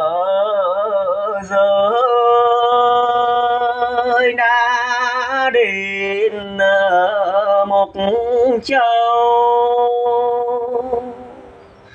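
Traditional Mường folk singing (Hát Mường): a single voice holding long, drawn-out notes with a wavering vibrato and sliding ornaments, fading away near the end.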